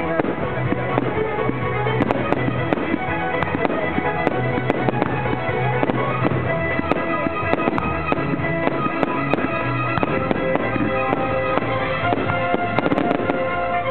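Fireworks launching and bursting, many sharp bangs and pops at irregular intervals, over continuous music accompanying the display.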